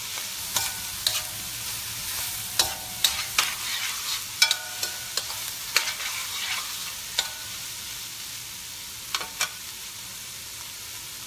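Diced Spam and vegetables frying in a stainless steel pan with a steady sizzle, while a metal spoon stirs and clinks against the pan, each clink ringing briefly. The clinks come often through the first seven seconds, then twice more near the end.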